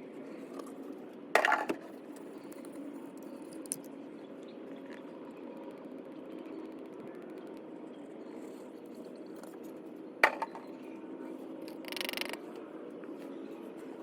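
Oil bottles and funnel being handled while topping up an engine: a sharp knock about a second and a half in, another near ten seconds in, and a brief rattle shortly after, over a steady low hum.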